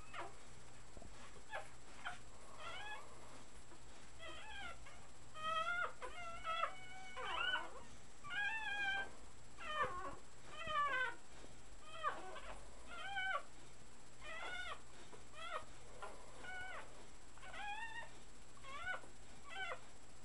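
Three-week-old puppies crying while they nurse on their mother: a string of short, high-pitched squeaky cries, some rising and falling in pitch, coming one or two a second.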